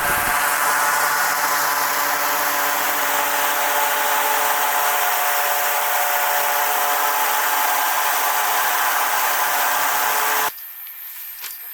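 Electric blower running steadily at full power, a rushing noise with a steady motor whine, blowing wind at a tent for a strong-wind test; it cuts off suddenly about ten and a half seconds in.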